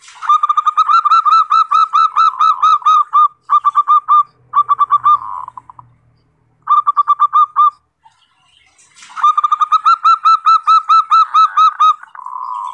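Zebra dove (perkutut) singing: quick runs of repeated staccato cooing notes, several a second. The runs come in several phrases, with a pause of about a second near the middle, then a long run.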